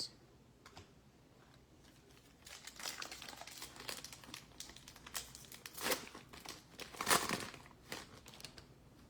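A 2021 Absolute Football trading-card pack wrapper being torn open and crinkled. It starts a couple of seconds in as irregular crackling, with two louder rips in the second half.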